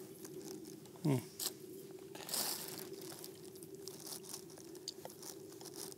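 Knife slicing through the crisp, crusty outside of a spit-roasted pork neck, with scattered crunching and cracking, the loudest crunch about two and a half seconds in. A short voiced sound is heard about a second in.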